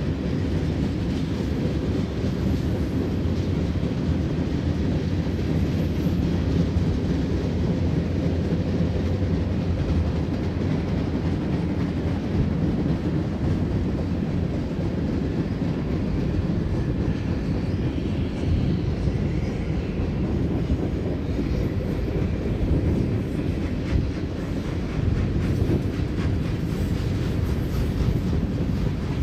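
Freight cars of a long mixed freight train rolling past steadily: a continuous low rumble of steel wheels on the rails, with no horn or engine sound standing out.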